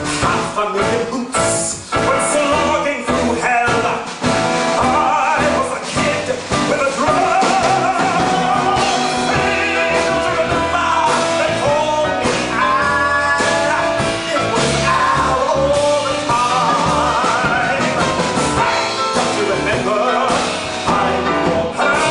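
A man singing into a microphone with a live band of drums, upright bass and guitar behind him.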